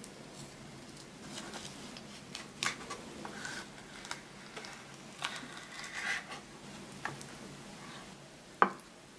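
Knife slicing through a thick slab of bacon on a wooden cutting board: soft scrapes and small clicks, with one sharp knock near the end.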